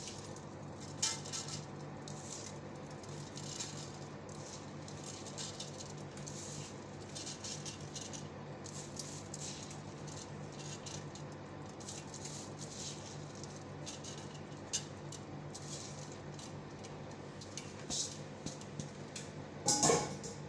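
Rice grains pattering and rattling into a pot in many short, irregular bursts as the rice is layered and spread by hand over the fried vegetables and chicken for maqluba, with a louder knock near the end and a steady low hum underneath.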